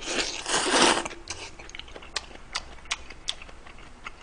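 A person slurping up a mouthful of soup noodles in two quick pulls lasting about a second, then chewing with scattered small clicks and smacks.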